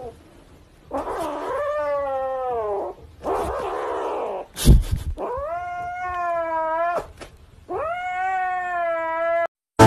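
Grey kitten giving long, drawn-out yowling meows, three of them, with a rougher, breathier cry between the first two. A sharp knock about halfway through.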